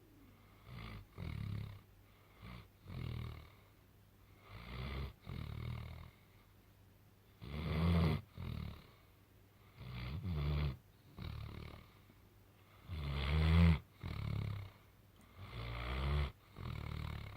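A sleeping dog snoring loudly, a deep snore roughly every two seconds, some in two parts. The loudest snores come about halfway through and again about two-thirds through.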